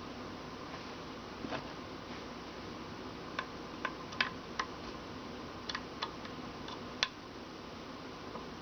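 About eight light, irregular metallic clicks and taps as a roll pin is worked into the new rack gear of a Cry Baby wah pedal, over a steady low hiss.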